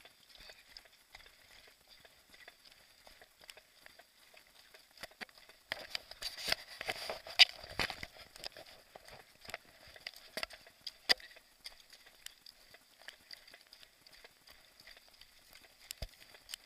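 Footsteps running downhill over loose rock and scree: scattered crunches and clicks of stones underfoot, with a louder, denser stretch of scraping, sliding gravel about six to eight seconds in.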